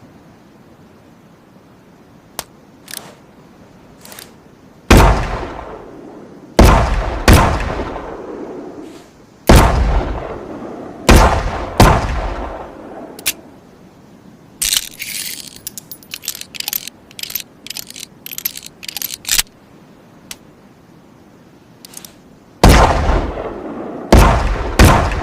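Chiappa Rhino 60DS revolver firing about seven single shots, each with a decaying echo, three more close together near the middle and two near the end. Faint clicks come before the first shot, and a quick run of small sharp clicks falls in a pause between shots.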